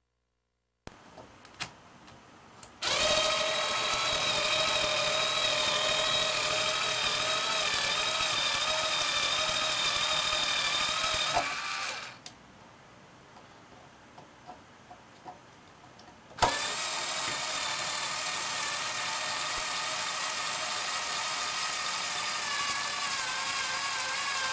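A power drill running in two long stretches, about nine seconds and then about eight, its motor whine wavering slightly in pitch, with a few light clicks before and between them.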